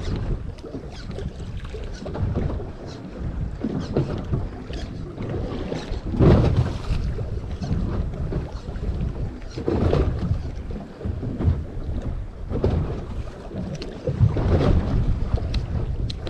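Wind buffeting the microphone over water splashing against the side of a small fishing boat, rising in irregular louder surges every few seconds.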